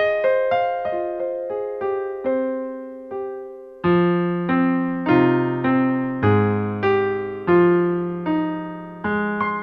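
Solo piano music: notes struck one after another and slowly fading. After a short lull about three seconds in, fuller, lower notes come in about four seconds in.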